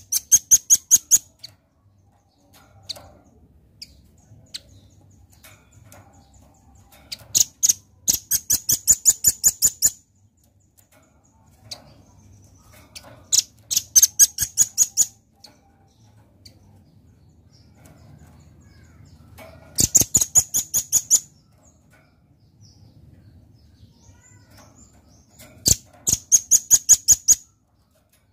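Caged velvet-fronted nuthatch calling in five bursts of rapid, sharp, high chipping notes, about eight notes a second, each burst lasting one to two seconds with pauses of several seconds between them.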